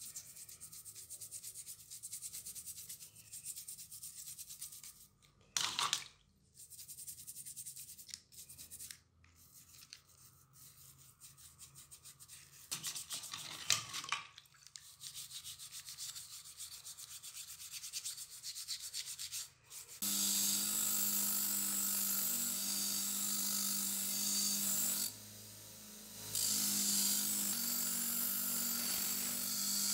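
Bristle brushes scrubbing a finned metal part in soapy water in a metal basin, a steady rubbing with a couple of louder scrapes. About two-thirds in, a bench-mounted wire wheel starts running steadily against the metal fins, dropping away for a moment and then resuming.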